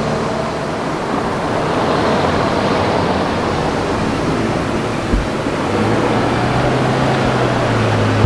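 Steady traffic rumble, then a small shuttle bus pulling up close, its engine a steady low hum from about six seconds in. A brief thump comes about five seconds in.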